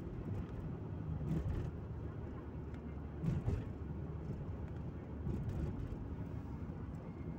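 Car driving at night, heard from inside the cabin: a steady low rumble of engine and road noise, with two brief louder swells about one and three seconds in.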